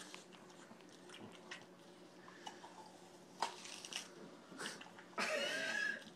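Boston terrier biting and chewing into a whole watermelon, with scattered sharp clicks of teeth on the rind. Near the end comes a louder, longer sound with a wavering pitch, lasting about a second.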